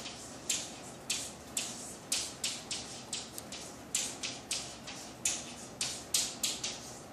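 Chalk writing on a chalkboard: a quick run of short, sharp scratching strokes, about two to three a second, as a word is written out letter by letter.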